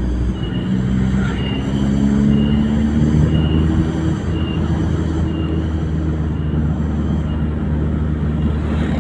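A vehicle running with a steady, loud rumble, and a faint high tone repeating about once a second.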